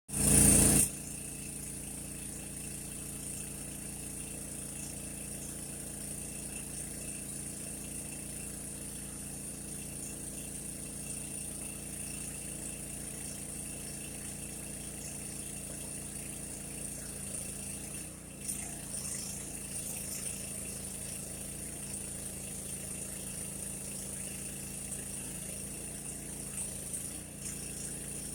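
Mini backhoe's small engine idling steadily, after a brief loud burst in the first second.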